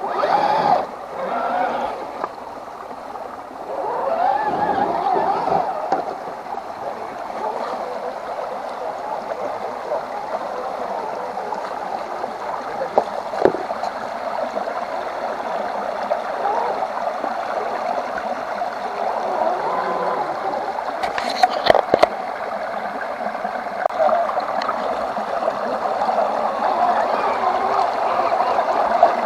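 Steady gurgling, churning water, with a couple of sharp clicks about three-quarters of the way through.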